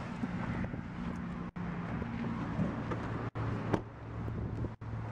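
A car engine idling with a steady low hum, with wind on the microphone. There is a single sharp click about three and a half seconds in, and the sound cuts out for an instant three times.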